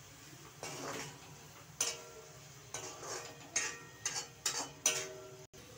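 Metal spatula scraping and clinking against a metal kadhai as a thick onion-tomato-capsicum masala is stirred, in about eight irregular strokes, each with a brief metallic ring.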